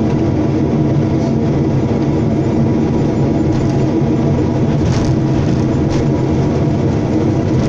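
Hyundai hydraulic excavator's diesel engine running steadily under digging load, heard from inside the cab, while the arm swings and the bucket dumps its soil, with a couple of faint knocks near the end.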